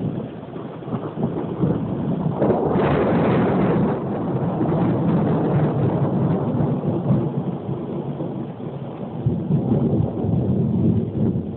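Thunder rolling through a rainstorm, with a sharper, louder crack about two and a half seconds in that rumbles on for several seconds over steady rain.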